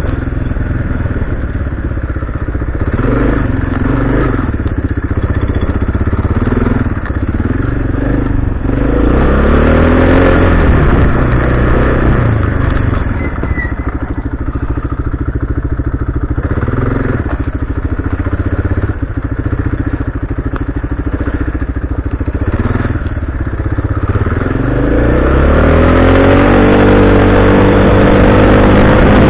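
Quad bike's single-cylinder four-stroke engine heard from the rider's seat, running at changing speed over rough grass and gravel. It revs up about ten seconds in, settles, then rises again near the end and holds a higher, steady pitch.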